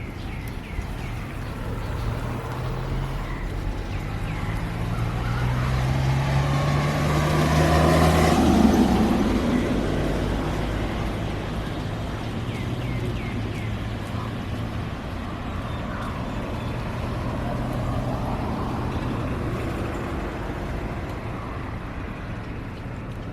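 A motor vehicle passing by: a low engine hum and road noise swell to a peak about a third of the way through, then fade away.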